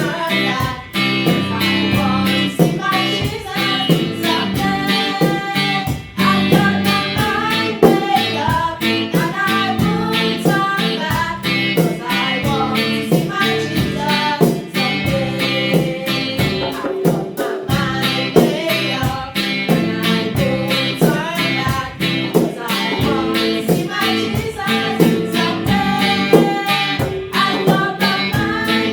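A song: singing over guitar with a steady beat.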